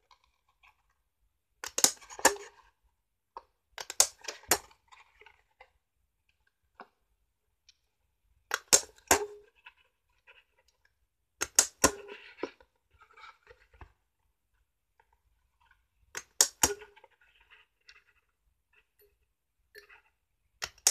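Handheld hole punch punching through cardstock: sharp double clicks, six times a few seconds apart, with light rustling of the card between punches.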